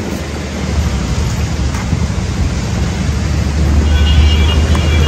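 Wind buffeting a handheld phone's microphone outdoors: a steady rushing noise with a heavy low rumble that swells louder toward the end.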